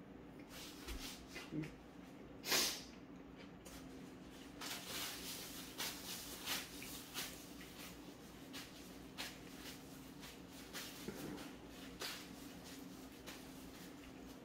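A man chewing a mouthful of burger, with quiet mouth noises and short sniffs and breaths through the nose; one louder sniff comes about two and a half seconds in.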